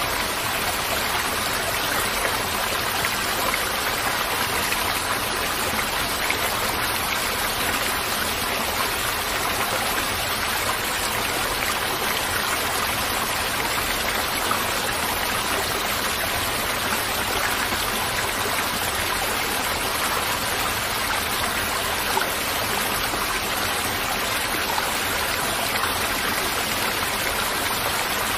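Steady rushing of flowing river water, an even unbroken wash of sound.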